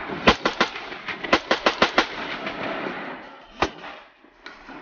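Rapid semi-automatic gunfire from a 14.5-inch 5.56 AR-15 fitted with a Battlecomp 51.0 compensator. A quick string of three shots is followed by a faster string of about six, then a single shot near the end.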